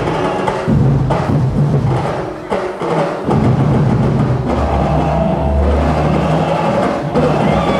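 A large drum-and-percussion ensemble playing a driving festival rhythm, with a short lull about two and a half seconds in.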